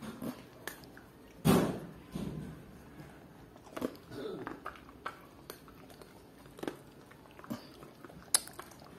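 Dogs and a cat taking hand-fed food and chewing it: scattered short crunches and clicks, with one louder short noise about a second and a half in.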